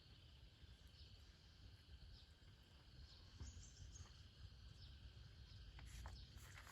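Faint rural outdoor ambience: a steady insect hum with scattered short bird chirps, and a few light clicks near the end.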